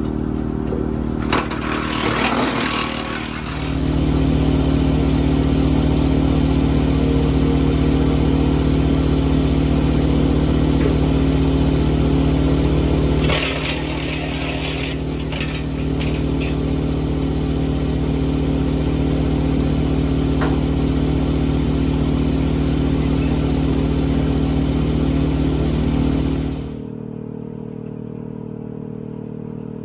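Kubota L3901 tractor's three-cylinder diesel engine driving a WoodMaxx MX-8800 PTO wood chipper, running steadily and loud, with two bursts of apple prunings being chewed up, one near the start and one about 13 seconds in. Near the end it drops to a quieter, lower hum.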